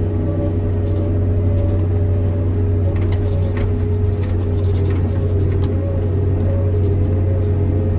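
Tractor engine running at a steady pace while driving, heard from inside the cab as a constant low drone, with a few light rattles about three seconds in and again past the five-second mark.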